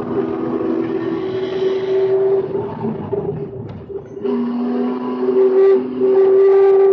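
A Spec E46 BMW race car's straight-six engine running hard at high revs, heard from inside the cabin. The engine note drops away briefly a little over three seconds in, then comes back strong about a second later and stays loud.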